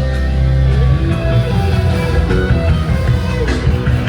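Loud live band music with guitar playing, no singing.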